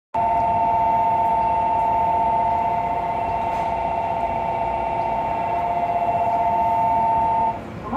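A steady two-note electronic signal tone, both notes sounding together and held for about seven and a half seconds before cutting off, over faint train running noise.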